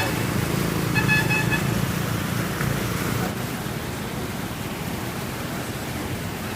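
Vehicle horn honking twice briefly, once at the start and again about a second in, over steady road-traffic noise.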